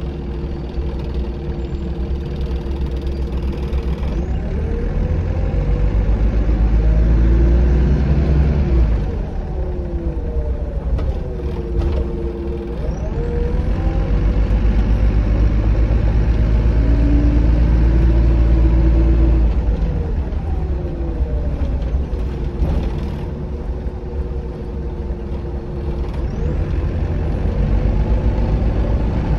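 Optare Solo SR single-deck bus heard from inside the passenger saloon, its engine and drivetrain droning with a heavy low rumble. The pitch rises and falls and the sound swells and eases several times as the bus speeds up and slows down, with a few brief knocks and rattles.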